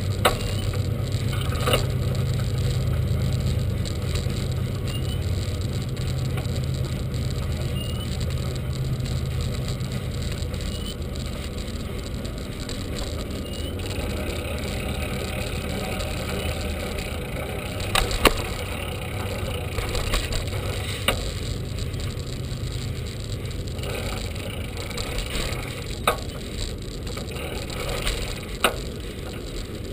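Bicycle riding noise: steady wind on the microphone and tyre rumble on a paved path, with occasional sharp knocks and rattles as the bike and its rear dog box go over bumps.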